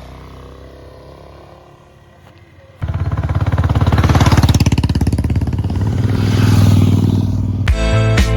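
Motorcycle engine: a low rumble at first, then about three seconds in it comes in loud with rapid, even firing pulses and revs up. Music starts near the end.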